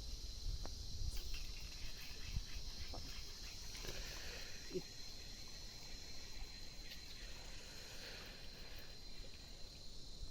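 Insects chirring steadily in a high, even drone, with a low rumbling noise underneath.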